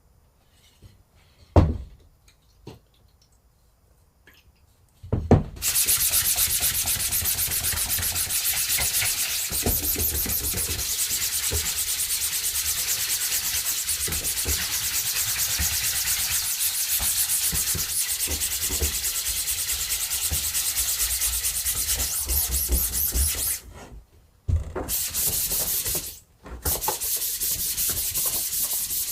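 Spray gun hissing in one steady jet for about eighteen seconds, then in two shorter bursts, with a few knocks before it starts.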